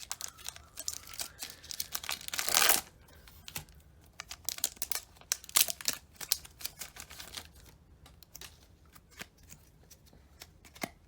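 Foil wrapper of a Pokémon booster pack being torn open, with one loud rip about two and a half seconds in, followed by crinkling and small clicks as the wrapper and cards are handled.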